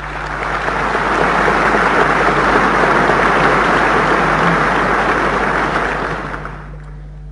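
Large hall audience applauding, building up over the first second, holding steady, then dying away near the end. A steady low mains hum runs underneath.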